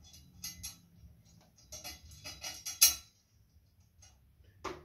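Metal mounting bolts clinking against one another and against the metal VESA plate of a swing-arm TV bracket as they are handled: a run of light clicks and clinks, the loudest about three seconds in, and one more near the end.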